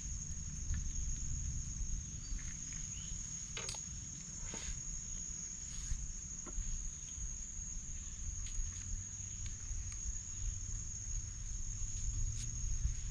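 Insect chorus from the riverside forest, a steady high-pitched trill that never lets up, over a low rumble, with a few light clicks in the middle.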